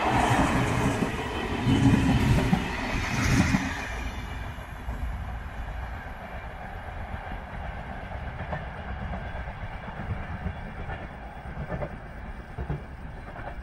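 Intercity passenger coaches rolling past close by on the rails, their wheels knocking over the track a few times in the first seconds. The rumble then fades steadily as the train draws away.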